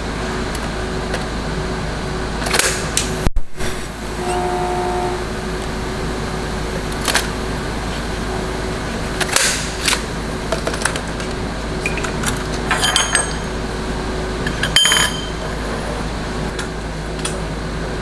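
Steel grate rods clinking and ringing against each other and the metal jig as they are handled and set, a few separate metallic clicks over a steady machine hum.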